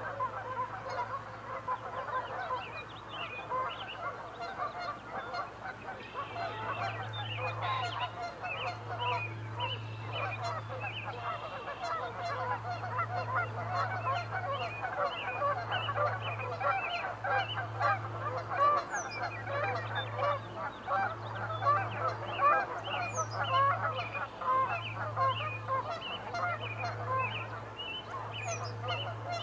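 A dense, continuous chorus of many short honking bird calls overlapping one another, typical of a flock of geese calling.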